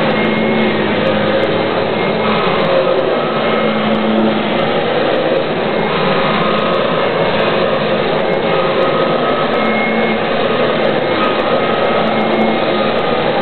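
Kirby G4 upright vacuum cleaner running steadily while it is pushed over a carpet, its motor and new multi-row brush roll making a constant loud noise with faint whining tones that come and go.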